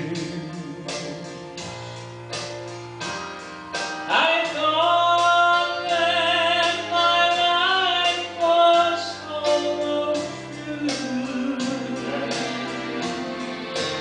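Southern gospel group singing with male and female voices over an instrumental accompaniment with a steady beat; the voices grow louder about four seconds in.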